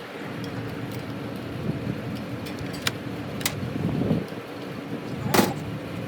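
A steady mechanical hum with a few sharp clicks, three in all, the loudest near the end.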